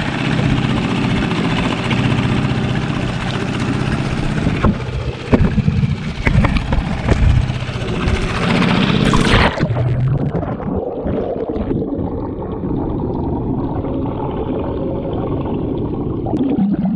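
Outboard motor of a small skiff running steadily on the water. About nine or ten seconds in it eases back to a lower, quieter running.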